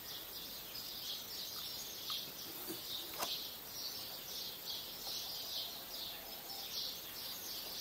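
Steady high-pitched chirping that repeats evenly about two or three times a second, with a single faint click about three seconds in.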